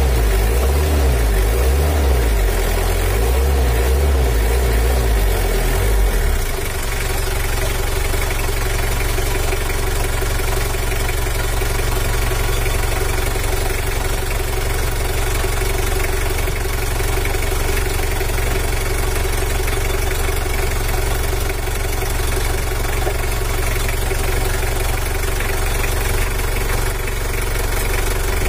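Mitsubishi L300's 4D56 four-cylinder diesel engine running while its injection pump is adjusted for more power. For the first six seconds or so its low drone pulses unevenly, then it settles into a steady idle.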